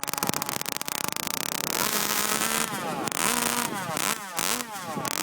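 Two-stroke engine of a Quickdraw-powered G4 Mobster RC hydroplane running at high revs, its pitch rising and falling several times in the second half.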